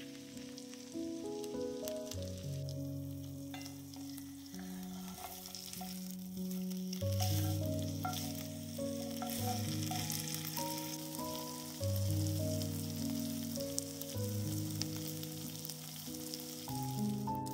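Grated-potato-coated chicken breast frying in oil and butter in a cast-iron skillet: a steady sizzle. Background music with slow, held notes plays throughout.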